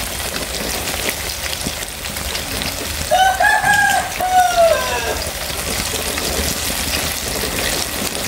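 Battered banana pieces deep-frying in hot oil in a wok, a steady crackling sizzle. About three seconds in, a rooster crows once for about two seconds, the call falling in pitch at the end.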